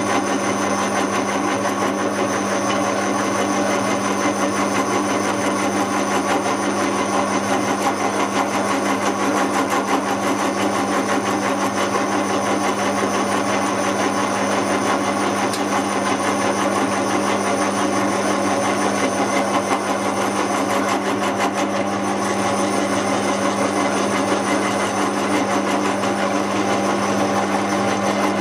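Centec 2B horizontal milling machine running steadily, its arbor-mounted cutter cutting a metal plate held in a vise: a steady machine hum with the continuous fine chatter of the cut.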